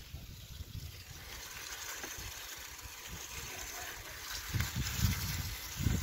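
Bicycle tyres rolling through wet slush and snow, a steady hissing swish, with a low rumble on the microphone that grows louder about four and a half seconds in.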